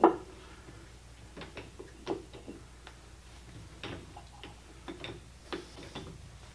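Metal clinks and clicks of a T-handle key working the cam locks on an Axelson lathe's spindle nose, with one sharp clank at the start and then scattered lighter clicks as the chuck is locked or unlocked.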